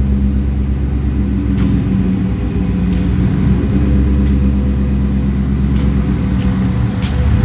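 Supercharged 5.0 V8 of a Ford F-150 with an MBRP exhaust, running steadily with a deep, even exhaust note; a few faint ticks are heard over it.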